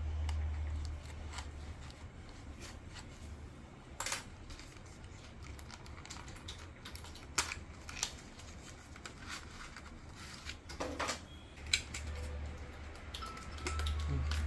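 Scattered clicks, taps and light rustling of PC parts and their packaging being handled, a few sharper clicks standing out, over a steady low hum.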